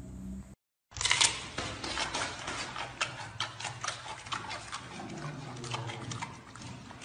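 A giant panda crunching and chewing a raw carrot: a fast, uneven run of crisp crunches and wet chewing clicks, loudest about a second in.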